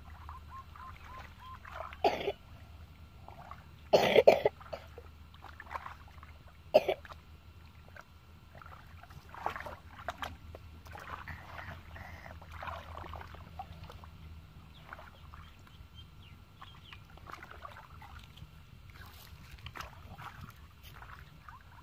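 Hands sloshing and splashing in shallow muddy water while feeling through mud and leaves for fish, in irregular short bursts. Three sharp, louder noises stand out, about two, four and seven seconds in, the one near four seconds the loudest.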